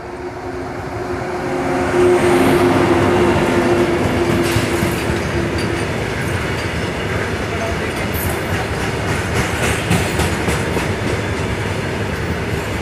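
WAG-9 electric locomotive passing close with a steady hum that fades within the first few seconds, then a long rake of open-top freight wagons rumbling past, with occasional clacks of wheels over the rail joints.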